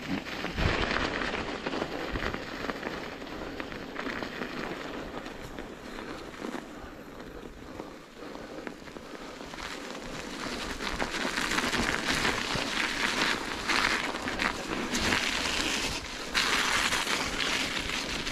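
Bicycle tyres (26 x 2.2) rolling over a snowy dirt trail, giving a continuous crackling crunch that grows louder over the second half.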